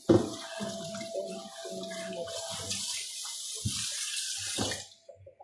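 Kitchen tap running into a sink, with knocks and clatter of things being handled under the water; the water shuts off about five seconds in.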